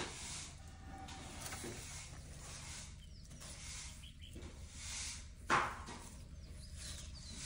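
Baby African elephant handling and feeding on a leafy branch: short bursts of rustling and hissing, with one louder, sharper burst about five and a half seconds in. Faint bird chirps sound a few times behind it.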